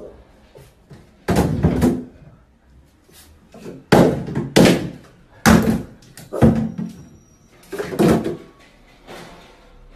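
Plastic shampoo and toiletry bottles knocked off a bathtub ledge and dropping into the empty tub: a string of about seven loud, sudden knocks at uneven intervals.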